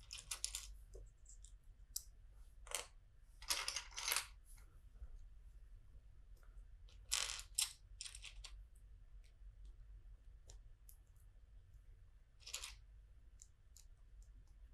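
Small plastic LEGO pieces clicking and clattering as they are sorted through and handled, in short clatters a few seconds apart with faint ticks between.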